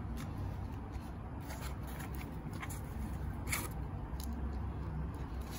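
Handling noise of unpacking: rustling with a few light scrapes and clicks as the ring light's coiled USB cable and parts are lifted out of the foam packing, the sharpest click about three and a half seconds in.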